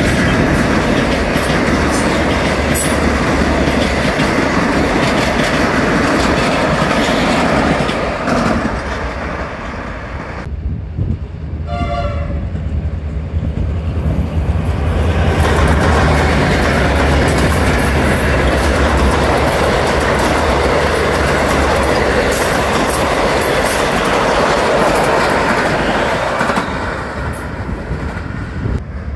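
A heritage passenger train's carriages rolling past, with wheels clacking over the rail joints. After a cut, a short horn blast is heard from a distance about twelve seconds in. Then a train hauled by three Victorian Railways T-class diesel-electric locomotives passes close by, engines and wheels loud, before fading as the carriages draw away.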